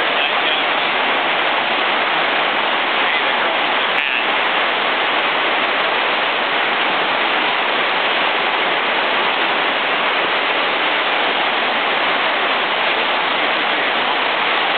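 Heavy rain pounding on a barn roof: a steady, unbroken, unbearably loud downpour.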